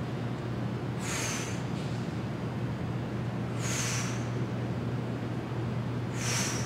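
A woman exhaling sharply in rhythm with trap bar deadlift reps: three hissing breaths about two and a half seconds apart, over a steady low hum.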